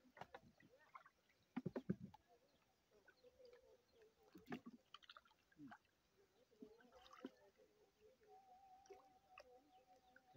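Mostly quiet handling of a fishing hand net in a wooden boat: a few short knocks, the loudest a quick cluster of them about two seconds in, with a faint steady tone in the last couple of seconds.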